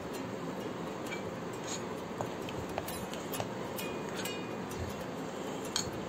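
A spoon clinking and scraping against a mixing bowl while bread dough is stirred: scattered light clinks, some ringing briefly, over a steady background hiss.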